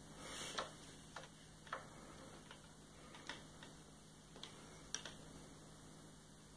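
A handful of faint, irregular clicks and taps from cats' paws and claws on a hardwood floor as two cats scuffle.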